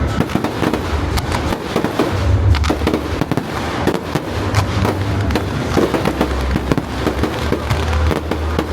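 Fireworks display going off: dense rapid crackling and popping, with several deep booms.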